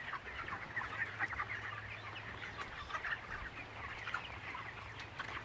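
A flock of 23-day-old broiler chickens calling, with many short overlapping peeps and clucks all through, over a steady low hum.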